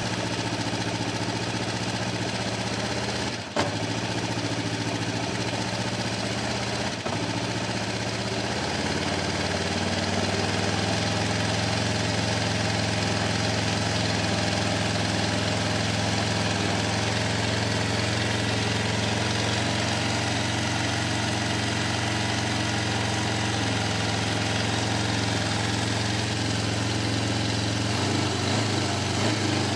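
Kawasaki Ninja 500 (EX500) parallel-twin engine idling cold with the choke about three-quarters on. It stumbles briefly twice a few seconds in, then the idle settles slightly higher and steady. A small throttle blip comes near the end. The owner suspects the carburetors behind the surging and cutting out.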